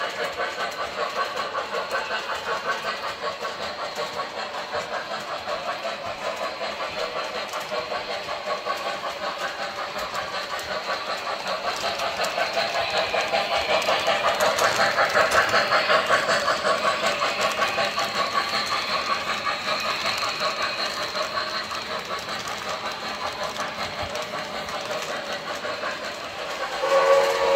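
Model steam locomotive (MTH RailKing Commodore Vanderbilt, a streamlined New York Central Hudson) running with its electronic sound system giving a rhythmic steam chuff, together with wheels rolling on the track; it grows louder as the engine passes close, about halfway through. Near the end a whistle starts to blow.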